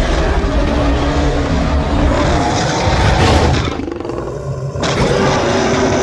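Bornean orangutan roaring calls as a sound effect: loud, rough and continuous, with a wavering pitched tone inside the noise and a short drop in level about four seconds in.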